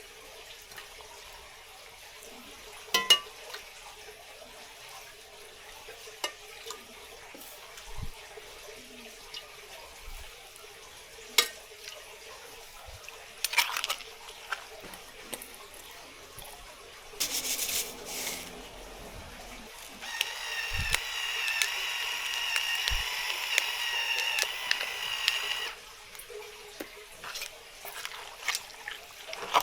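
Water running from a kitchen tap into a sink, with scattered clinks and knocks. A louder, steadier stretch of running water with a faint whistling tone comes about two-thirds of the way through.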